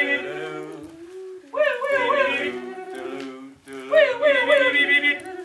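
A voice vocalizing without words in three long phrases of wavering pitch, each about a second and a half with short breaks between, over a quieter low steady tone.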